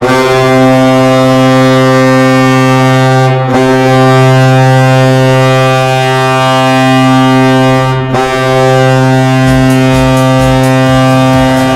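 Colorado Avalanche goal horn: a deep, loud air horn sounding three long blasts, with brief breaks just after 3 seconds and 8 seconds in. About 9.5 seconds in, the drum beat of the goal song starts under the horn.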